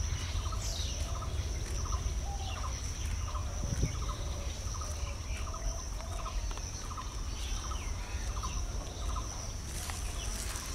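Birds chirping and calling, one short call repeating about once a second, with a steady high whine and a low rumble underneath.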